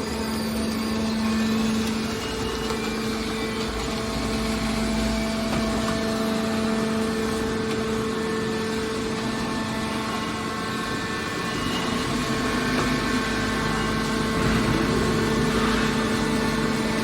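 Mobile scrap metal baler's engine running steadily with a constant hum.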